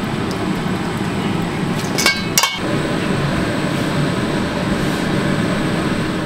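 Steady kitchen background noise with a single short ringing clink of cookware or a utensil about two seconds in.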